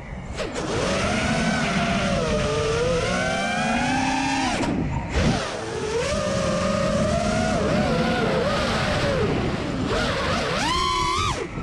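FPV freestyle quadcopter's brushless motors (T-Motor F40 Pro 2400 kV) and props whining, the pitch swooping up and down with the throttle through flips and dives, over a rumble of wind on the onboard camera. The whine drops away briefly about five seconds in, and climbs steeply in a hard punch near the end.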